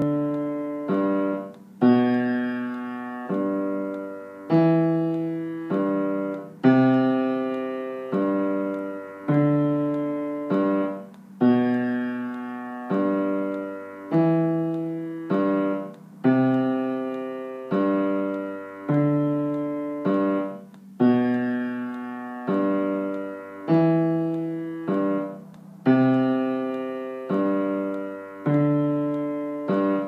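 Piano playing the secondo part of a piano duet: chords struck about once a second, each left to ring and fade, with shorter notes between them.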